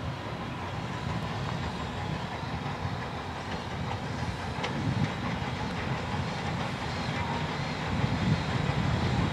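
Steam-hauled train of Southern Railway #154, an 1890 Schenectady-built locomotive, running on the track: a steady rolling noise that gets louder near the end.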